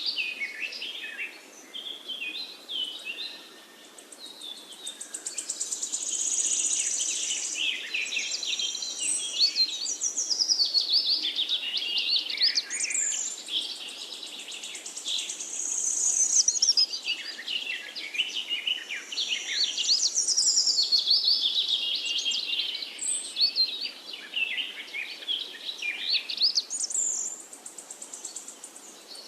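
Birds singing and calling, many overlapping high-pitched chirps, whistles and rapid trills with no pause. The dense trills swell and fade several times.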